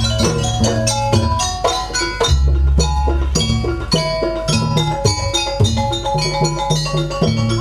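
Live jaranan gamelan music: metal pot gongs and gongs are struck in a quick, dense pattern with drum strokes, over deep gong tones that swell and fade underneath.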